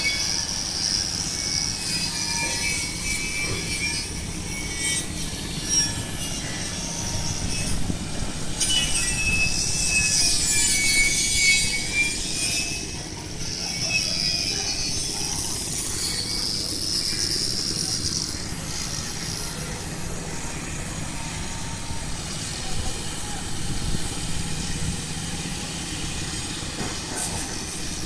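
Metal squealing and grinding, high-pitched and wavering, over a steady low machinery hum, from repair work on a ship.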